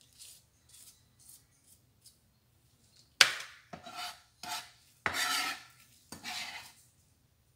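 Kitchen knife scraping across a cutting board: a few faint scrapes at first, then five louder strokes in the second half, each a sharp scrape that trails off.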